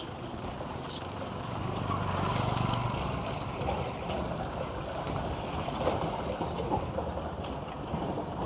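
A motorcycle's engine passing close on a dirt road, loudest about two to three seconds in, over steady street noise with more motorcycles further off. A brief sharp click about a second in.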